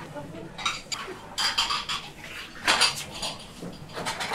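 Dishes and metal utensils clinking and clattering in a busy kitchen: several separate sharp knocks, each with a brief high ring.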